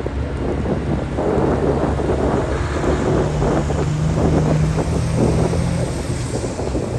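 Diesel engine of a Mitsubishi Fuso tank truck driving past close by, growing louder in the middle and easing off near the end, with wind buffeting the microphone.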